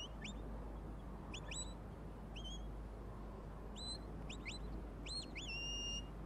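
Shepherd's whistle commands to a working border collie: a run of short rising whistle notes, several in quick pairs, then a longer held note near the end.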